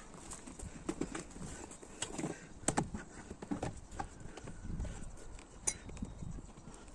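Irregular footsteps and handling knocks, a few clicks and thuds a second or so apart over low rumble, from someone walking around the garden while filming.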